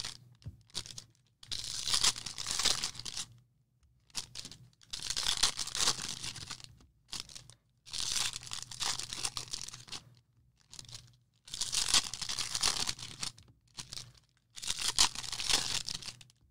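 Baseball-card pack wrappers being torn open and crinkled by hand, in five bursts of a second or two each, with short pauses between.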